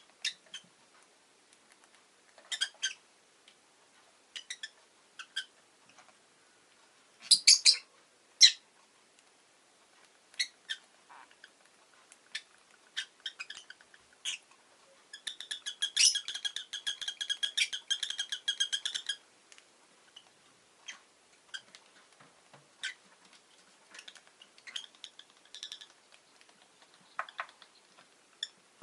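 Rosy-faced lovebird chirping in short, scattered calls, with a run of rapid chattering for about four seconds midway.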